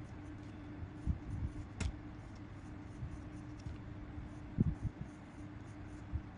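Pencil scratching on paper as lines are drawn, with a few soft knocks and one sharp click just under two seconds in, over a steady low hum.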